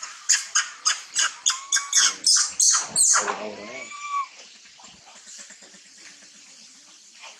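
Baby long-tailed macaque giving a rapid run of about a dozen shrill screams, roughly four a second, over about three seconds, then falling much quieter. These are an infant's distress cries.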